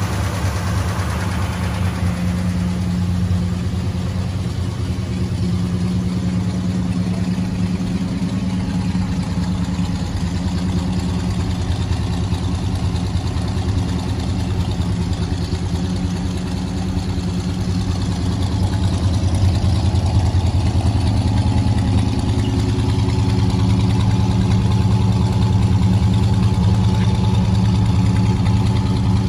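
1958 Plymouth Belvedere's 318 V8 with a four-barrel carburettor idling steadily after a cold start. It grows a little louder about two-thirds of the way through.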